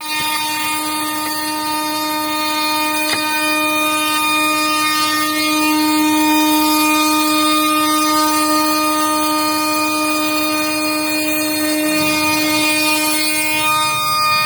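2.2 kW CNC router spindle running with a steady high whine while a 12 mm end mill faces the top of a workpiece. The whine weakens near the end.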